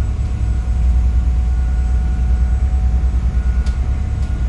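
Sightseeing boat's engine running under way with a steady low drone, mixed with the rush of water and spray breaking along the hull in rough sea.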